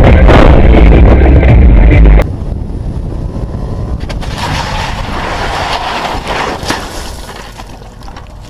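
Loud, distorted sound with a heavy low rumble that cuts off abruptly about two seconds in. It gives way to quieter road and wind noise inside a moving car, with a few sharp knocks.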